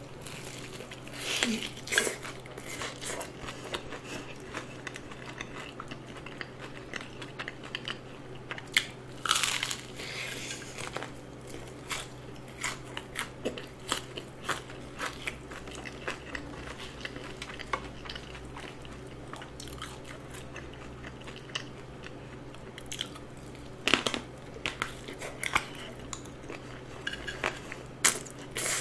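Close-miked biting and chewing of a crisp, seasoned Bburinkle fried chicken drumstick: crackling crunches of the coated skin with wet chewing in between. A few bites crunch much louder than the rest, at the start, about a third of the way in, and near the end.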